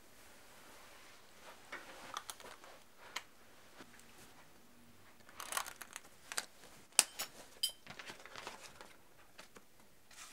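Small objects being handled: faint rustling and crinkling broken by a scatter of sharp little clicks, the loudest bunched about five to eight seconds in.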